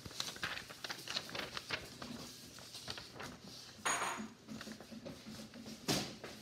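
Sheets of paper being handled and shuffled close to the microphone, a run of small crinkles and rustles, with two louder sudden clattering noises, one about four seconds in with a brief metallic ring and one near the end.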